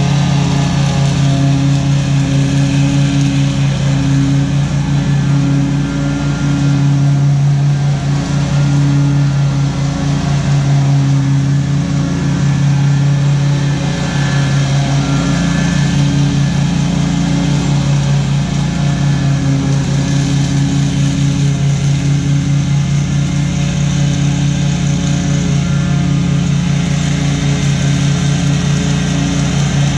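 Commercial lawn mower engine running steadily at a constant speed.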